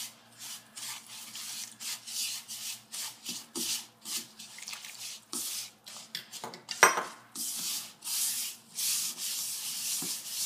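Fingers mixing semolina and water into dough in a bowl: repeated gritty rubbing and scraping strokes at about two a second, with one sharp knock about seven seconds in.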